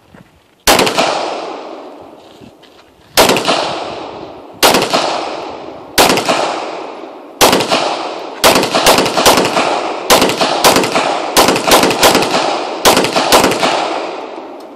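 A 9mm pistol firing a string of shots at a body-armour plate, each shot trailing off. The first few come one to two and a half seconds apart, then from about eight seconds in the rest of the magazine goes off quickly, about two or three shots a second.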